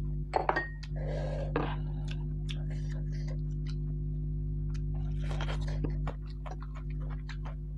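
Porcelain soup bowl set down on the table with a sharp clink and a brief ring about half a second in. Then close-up eating sounds follow: wet chewing, swallowing and lip clicks of mutton-feet soup and dhido, over a steady low electrical hum.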